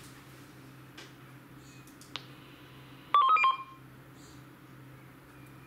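Puxing PX-888K handheld radio's speaker sounding a quick run of beeps, about half a second long, about three seconds in: the emergency-channel relay answering the test call, whose two beeps mean the radio is reaching the network.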